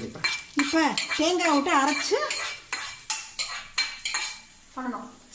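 Repeated sharp metal clinks of a spoon and pan tongs against a small stainless-steel pan as lentils and dried red chillies are dry-roasted in it. A woman's voice is heard briefly in the first half.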